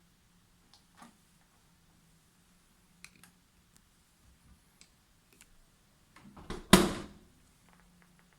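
Dishwasher being handled: a few light clicks and taps, then a loud clunk with a brief rattle about six and a half seconds in.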